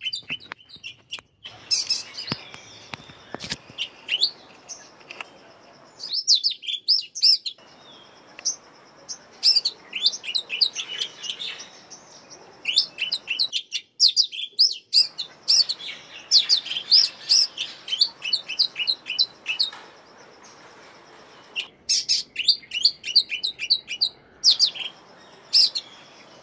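Small birds chirping in quick bursts of short, high notes, several chirps a second, with short pauses between the bursts and a thin steady high tone underneath.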